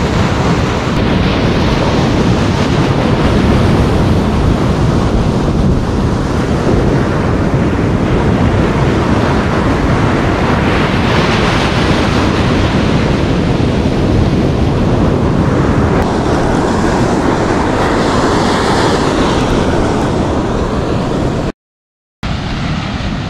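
Ocean surf breaking and washing up a sandy beach, a steady rush of noise that swells twice, with wind buffeting the microphone. The sound drops out completely for under a second near the end.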